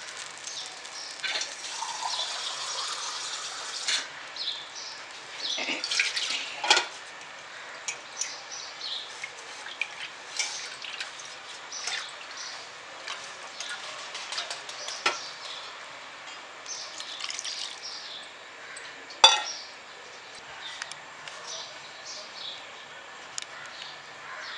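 Thin fish curry heating in a pan on the stove, with a hiss that cuts off about four seconds in. Scattered small pops and bubbling follow as the liquid comes toward the boil, with one sharp click about 19 seconds in.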